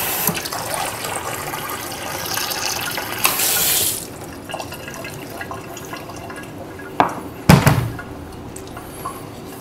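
Kitchen faucet running for about four seconds, filling a glass with water, the rush getting louder just before it is shut off. Two sharp knocks follow a few seconds later.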